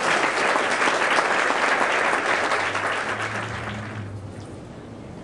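Audience applauding, strong at first and dying away about four seconds in.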